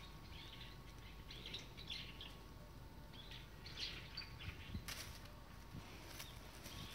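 Faint songbirds chirping, short high calls scattered over several seconds, with a brief rustle in dry fallen leaves about five seconds in.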